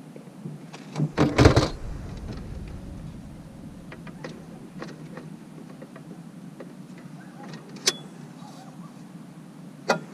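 Handling knocks and rattles: a loud thump with a rattle about a second in, then scattered light clicks and knocks, a sharp click near the end and another knock as it closes.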